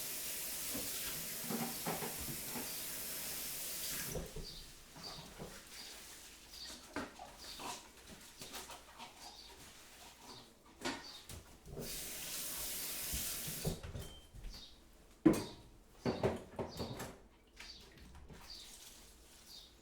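Kitchen sounds of crockery and utensils being handled: scattered clinks and knocks, one sharp knock about three-quarters of the way through. A steady hiss stops about four seconds in and comes back briefly later. Small birds chirp faintly throughout.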